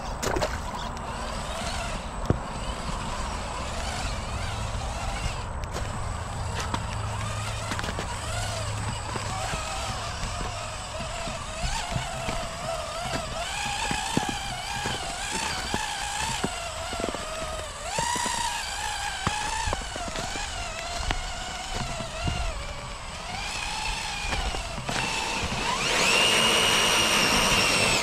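RC4WD Bully 2 rock crawler's electric motor and geartrain whining, the pitch wavering up and down with the throttle as it crawls. About two seconds from the end it rises to a louder, higher steady whine.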